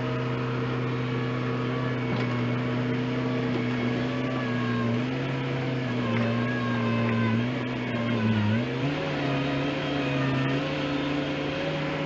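New Holland skid steer loader's diesel engine running steadily while the machine works dirt with its bucket. About two-thirds of the way through the engine pitch sags briefly, as under load when the bucket pushes into the bank, then picks back up.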